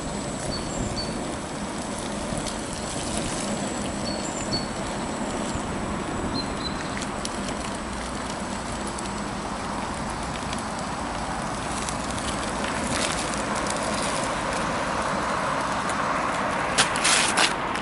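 Steady rush of wind and road noise while riding a Ninebot One S2 electric unicycle, with a few sharp clicks or rattles near the end.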